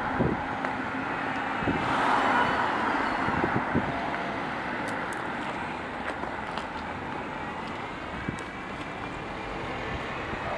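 Street traffic ambience, with a car passing about two seconds in and the noise then easing off.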